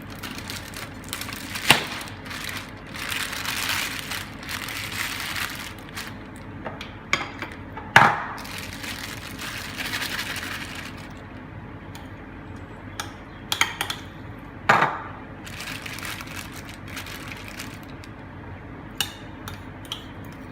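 Kitchen handling sounds: several sharp clinks and knocks of utensils against dishes, with stretches of rustling in between, as butter and cream cheese are added to the marinating chicken.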